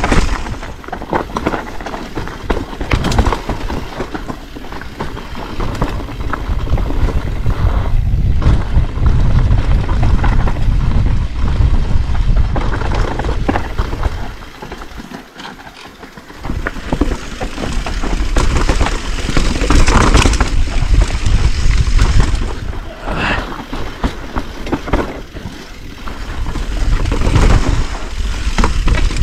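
Mountain bike being ridden fast down a dirt trail, with tyres rolling over dirt and leaf litter, clicks and rattles from the bike over bumps, and wind buffeting the microphone. The noise eases for a couple of seconds about halfway through, then picks up again.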